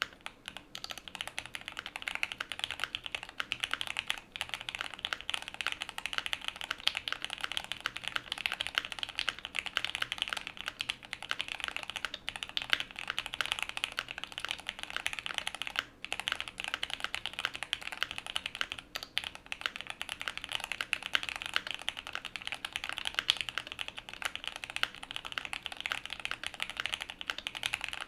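Steady, fast typing on a QK75 mechanical keyboard with a POM plate, full foam dampening, relubed Gateron Oil King linear switches and GMK keycaps. The keystrokes run in a dense stream with two brief pauses past the middle.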